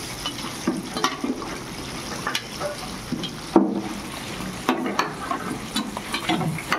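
Breaded chicken pieces deep-frying in a commercial fryer, the oil sizzling steadily. Scattered clicks and knocks of a perforated metal skimmer against the wire basket and fryer, the sharpest about halfway through.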